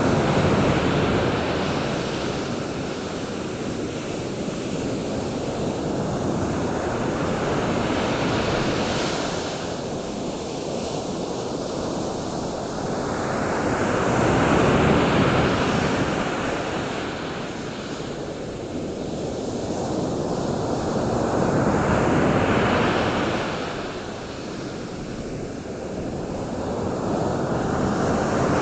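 Ocean surf: waves washing in and receding, a rushing noise that swells and falls back about every seven seconds, with some wind on the microphone.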